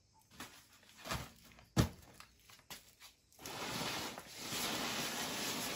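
A few sharp knocks as a plastic bucket lid is pressed down shut, the loudest a little under two seconds in. Just past halfway a steady hiss sets in and holds.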